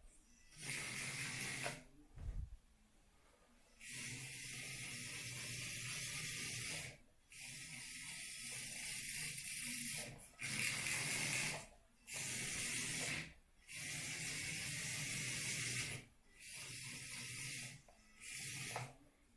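Tiny electric drive motor and gearbox of a 1:87-scale Carson RC Unimog U400 whirring in repeated bursts of one to three seconds, stopping and starting about eight times as the model is driven in short runs.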